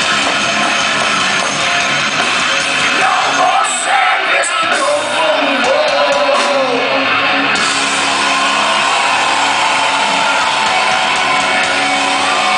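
Heavy metal band playing live in a large hall: distorted electric guitars and drums with a singer's shouted vocals.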